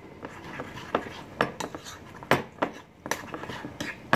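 Metal spoon stirring a thick flour-and-water sourdough starter in a bowl, clinking irregularly against the bowl's side, with a few sharper knocks.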